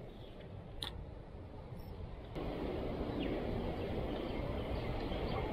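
Wind noise on the microphone, a steady low rumble that jumps louder about two seconds in, with a single sharp click about a second in.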